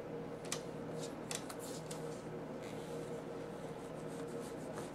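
Kitchen knife cutting into the rough, thick skin of a mamey sapote: faint scraping with a couple of light clicks in the first second and a half, over a steady low hum.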